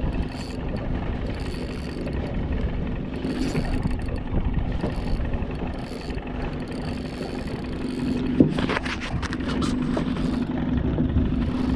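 A small boat's motor running steadily with a low hum under wind and water noise. A sharp knock comes about eight and a half seconds in, followed by a quick run of clicks.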